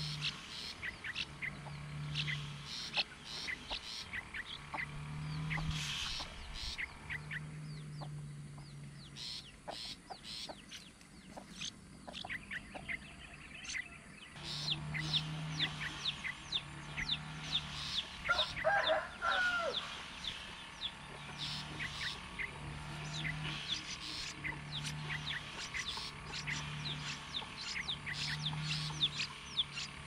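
Wild birds calling: many short, high chirps throughout, under a deep hooting note about a second long, repeated every second or two. About two-thirds of the way in, one louder, longer call rises and falls.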